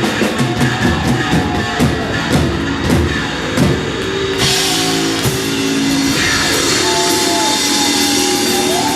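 Live rock band playing loud drums and electric guitar. A little under halfway through, the steady drumming gives way to a ringing cymbal wash over held chords.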